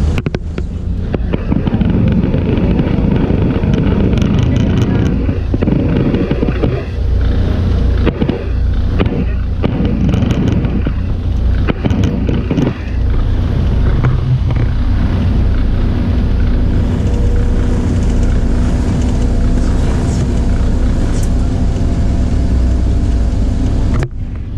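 Passenger hovercraft's engine and ducted propellers running loud and steady, heard from on board, with a few short knocks about midway.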